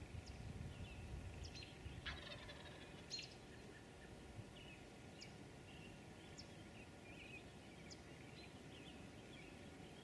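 Wild turkey tom gobbling once, faint, about two seconds in, over scattered small songbird chirps.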